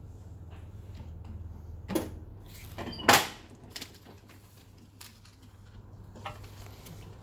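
A few short knocks and clunks of things being handled, the loudest about three seconds in, over a steady low hum.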